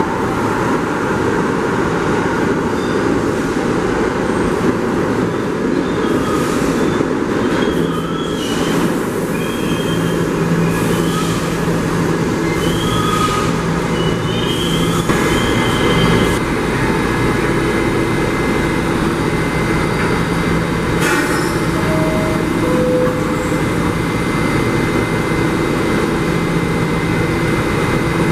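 R32 subway train on the express track, a continuous low rumble and hum with short high-pitched wheel squeals between about six and fifteen seconds in.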